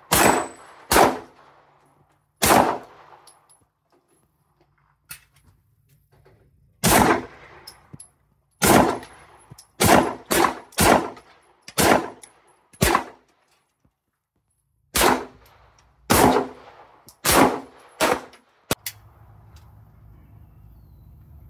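Semi-automatic pistol firing about fifteen single shots at an irregular pace, some in quick succession and others a couple of seconds apart, each with a short ring-out. The shots stop about three seconds before the end.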